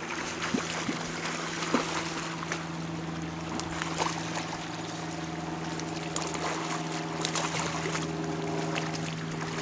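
Creek water rushing, with a steady low hum underneath and a few short clicks and splashes as a hooked trout thrashes at the surface near the bank.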